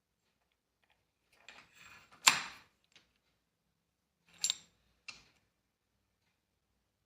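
A few sharp knocks and clicks of a hard object being handled. A cluster of them comes about a second and a half in, the loudest just after two seconds, and two shorter knocks follow near the middle.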